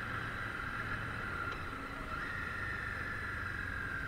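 Harley-Davidson Street 500's V-twin engine running steadily while riding, with wind and road noise; its pitch steps up slightly about two seconds in.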